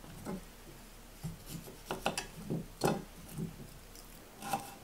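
Chef's knife cutting the peel off a fresh ginger root on a wooden cutting board: a string of short, irregular scrapes and taps.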